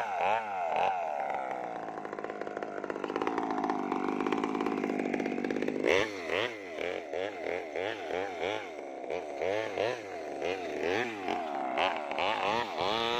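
Mini two-stroke Maestro chainsaw running at high revs as it rips lengthwise through a sengon log. About six seconds in, the engine speed begins rising and falling about twice a second.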